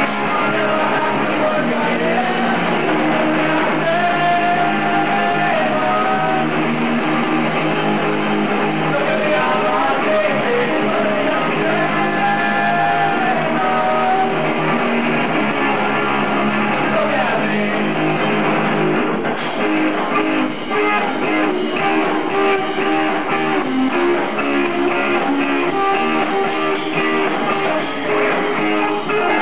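Rock music: guitars over a drum kit with a steady beat.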